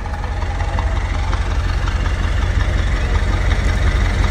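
BMW M5 F90's twin-turbo V8 through a SuperSprint exhaust, running steadily with a deep, pulsing low rumble and no revs. It grows steadily louder.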